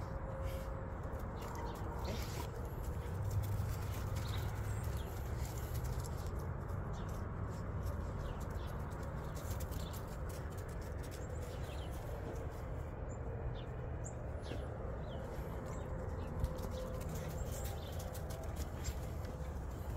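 Farmyard ambience: a steady low rumble, scattered small clicks, and a few faint bird chirps.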